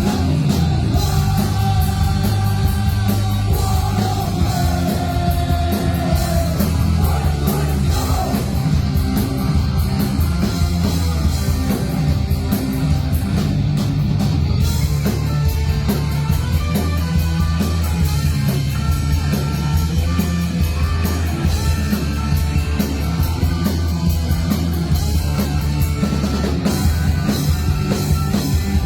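Loud live rock band playing, with drum kit and heavy guitars and bass, and some singing.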